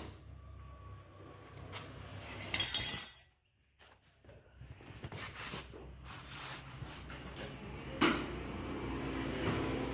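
Metal clinking and clanking, with a loud ringing clatter about three seconds in and a sharp knock near eight seconds, over a low steady hum.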